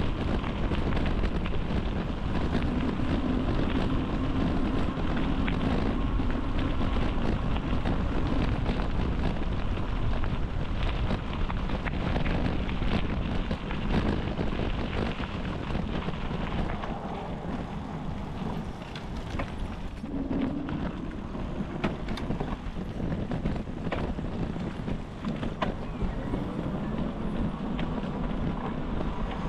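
Wind buffeting the microphone of a camera riding along on a moving bicycle, a steady rushing noise with fine ticks running through it that eases slightly past the middle.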